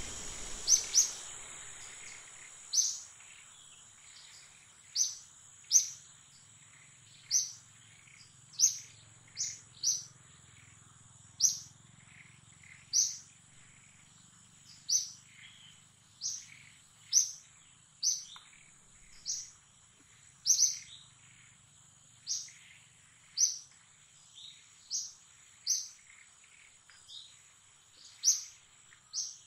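A bird calling over and over with a short, high, falling chirp, about one a second at an uneven pace, over a steady thin high-pitched whine.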